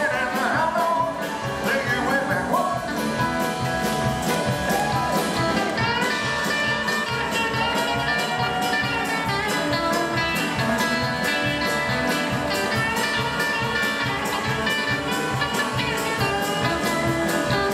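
Live rock and roll band playing at a steady beat, with electric guitar. A male voice sings in the first few seconds, then held instrumental notes carry the rest.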